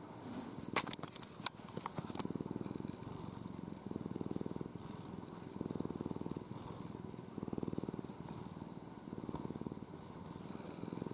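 Ginger-and-white domestic cat purring while its face is stroked, in rhythmic swells of about a second with each breath, some six in all. A few sharp clicks about a second in.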